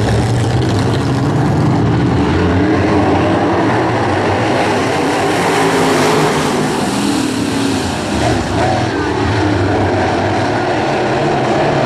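A pack of dirt crate late model race cars running their V8 engines at racing speed around the track, with a louder close pass-by about halfway through.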